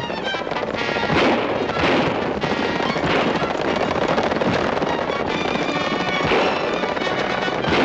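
Background film music over repeated revolver gunshots, sharp cracks at uneven intervals about a second apart, during a horseback chase.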